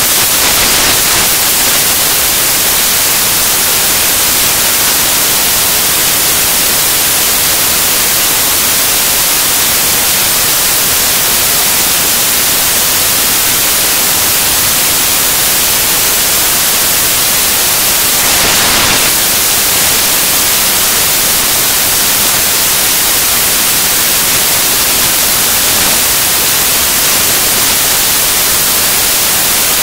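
Loud, steady static hiss like white noise, strongest in the highs, with no other sound heard through it. It swells slightly for a moment a little past the middle.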